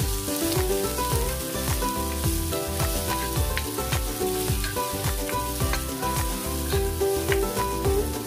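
Sliced onion and garlic sizzling in hot oil in a nonstick pot, stirred with a wooden spoon that scrapes and knocks against the pan many times.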